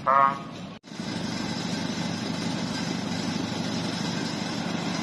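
A vehicle engine idling, a steady low hum that holds at one level after a sudden cut just under a second in.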